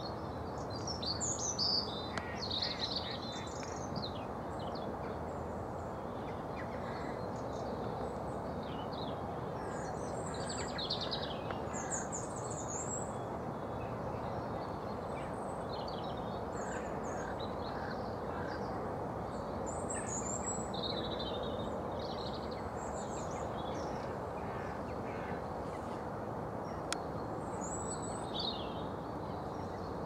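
Small birds calling: several bouts of short, high chirps and twitters, over a steady low background noise.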